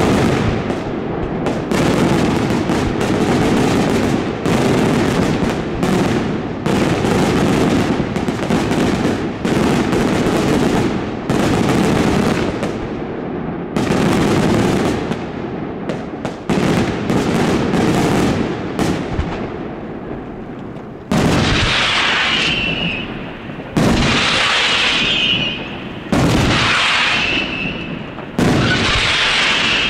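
Daylight fireworks display: aerial shells bursting in a dense, rapid barrage of bangs for about twenty seconds, then four heavy booms a couple of seconds apart, each trailed by a high hiss.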